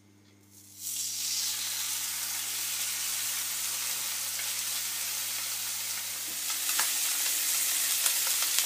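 Cod steak sizzling in a ridged grill pan on maximum heat. The sizzle starts suddenly about a second in as the oiled fish is laid down, then gets louder with small spitting crackles from about six and a half seconds.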